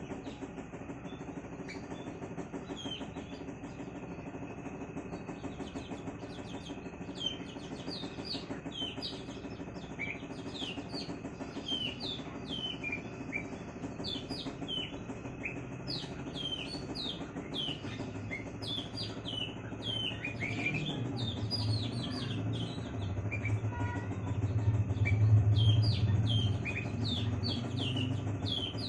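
Small bird chirping: a quick run of short, falling chirps repeated over and over, over a low steady rumble that swells in the second half.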